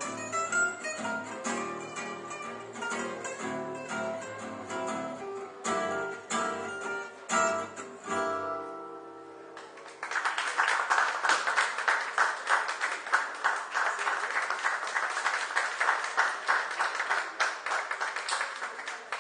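Gypsy jazz on acoustic guitars with double bass, ending on a final chord that rings out, then applause for about nine seconds starting about ten seconds in.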